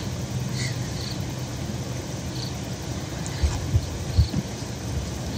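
Insects chirping in short high bursts, one every half second to a second, over a steady low rumble, with a few soft low thumps in the second half.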